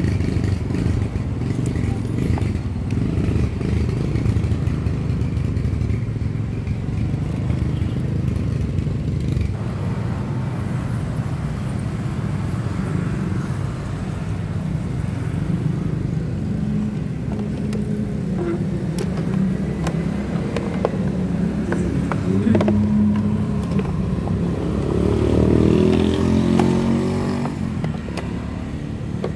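An engine running steadily nearby, swelling briefly near the end, with a few light clicks of a screwdriver working on the battery terminals.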